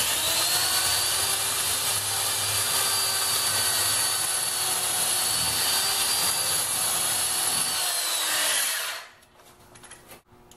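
Electric hand drill running at a steady speed as it bores a screw hole into a wooden pedal, then winding down and stopping about nine seconds in.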